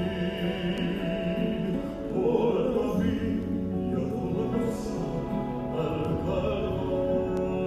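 Music: a slow song with a solo voice singing held, wavering notes over instrumental accompaniment.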